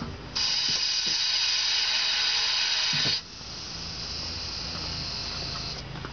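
Toyota Prius brake actuator pump running in brake-bleed service mode with the brake pedal held, forcing brake fluid out through the open bleeder valve into the catch bottle. A loud high-pitched whine starts under half a second in, drops to a quieter whine about three seconds in, and stops shortly before the end.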